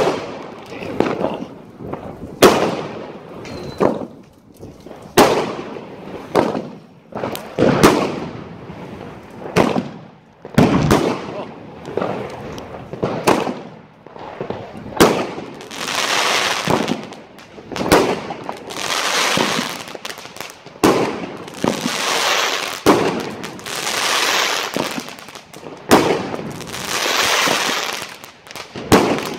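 Aerial fireworks going off in quick succession: sharp bangs from bursting shells about once a second. From about halfway, longer crackling bursts come every couple of seconds, mixed with bangs.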